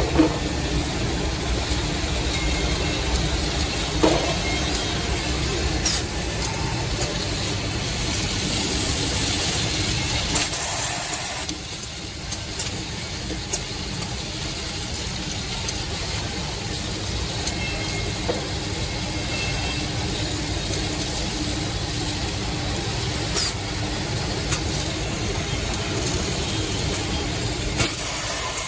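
Automatic two-head drilling and threaded-insert machine running: a steady motor hum and rumble with sharp clicks of its pneumatic cylinders. About ten seconds in there is a hissing burst, after which the low rumble drops.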